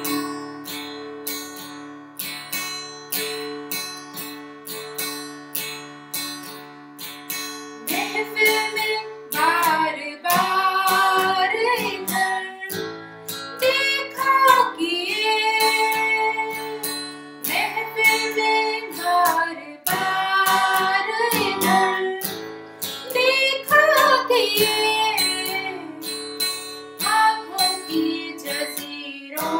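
Steel-string acoustic guitar strummed in a steady rhythm, joined about eight seconds in by a woman singing a melody over it.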